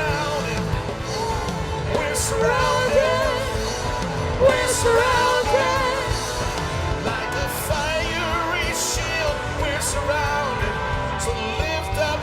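Live worship music: sustained band accompaniment with a voice singing over it, its pitch wavering.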